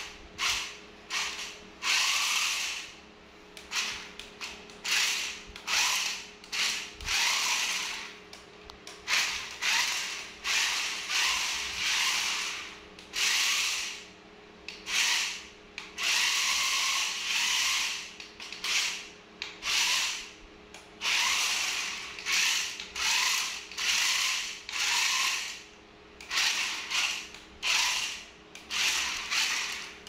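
Toy remote-control stunt car with mecanum-style wheels, its small electric motors and plastic gearboxes whirring in short stop-start bursts, roughly one a second, as it is driven and spun on a tiled floor.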